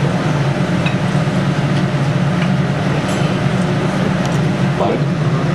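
Steady, loud low drone with a hiss over it: the running room noise of a teppanyaki restaurant. A few faint clinks from the metal ladle against the ceramic sauce dishes.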